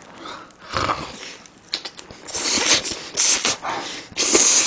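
Close-miked eating of a slice of cheese fry pizza: a bite, then loud wet chewing in several bursts from about two seconds in.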